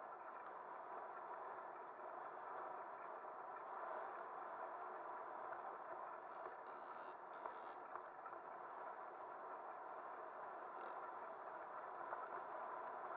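Off-road motorcycle engine running steadily while riding a rough, rocky dirt track, heard dull and muffled.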